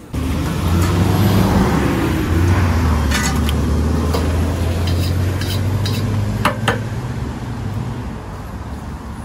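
Wok cooking: a gas wok burner running with a steady low roar under a sizzling hiss, and a metal utensil clanking sharply against the wok a few times. The roar eases off near the end.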